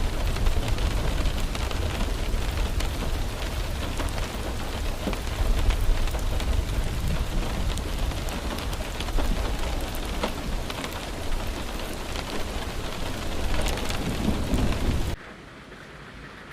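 Heavy rain falling, with scattered drop ticks and a low rumble underneath. It cuts off abruptly near the end to a much quieter background.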